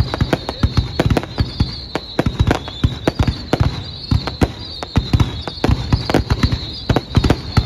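Fireworks display: a rapid, irregular run of booms and bangs, several a second, with a high wavering whistle-like tone running under them until near the end.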